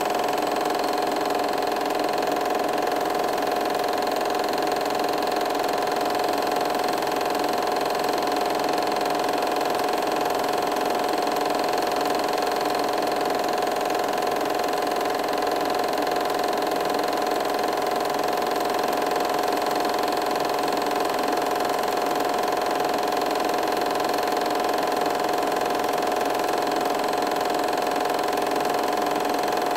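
Film projector running steadily: an even motor hum and mechanical whir with no change in pitch or level.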